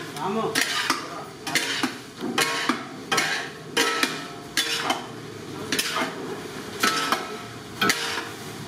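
Two long steel spatulas clinking and scraping against a large steel kadai as a big batch of fried rice is tossed and turned, about one stroke a second, each a sharp clink followed by a scrape.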